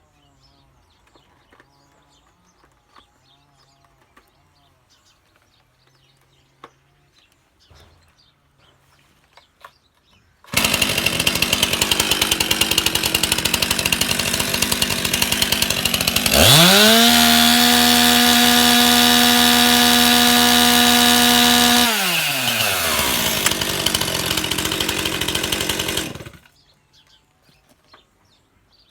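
Two-stroke chainsaw starting about ten seconds in and idling unevenly. It is then revved up to a steady full-throttle whine for about five seconds, which makes the chain throw off oil as a check of the chain oil pump. It drops back to idle and is switched off, cutting out abruptly.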